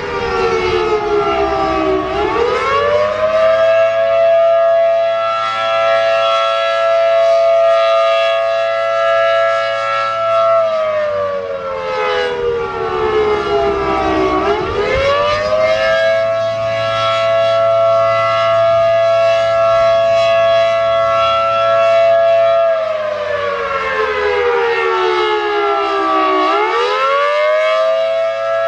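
ACA Allertor 125 rotating electromechanical outdoor warning siren at full speed, sounding its 10/12-port two-note chord. The chord holds steady, then sags in pitch and climbs quickly back up, about every 12 seconds; gusty wind was slowing the siren's rotation.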